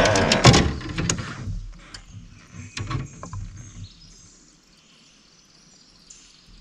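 A brief clatter with a short vocal sound at the start, then a few sharp knocks in a small fishing boat about three seconds in, fading to quiet lake ambience.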